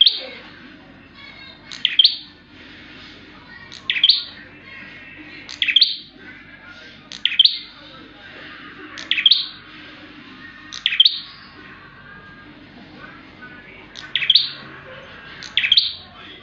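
Prenjak (prinia) calling loudly, a sharp high call repeated about every second and a half to two seconds, with fainter chirping between the calls.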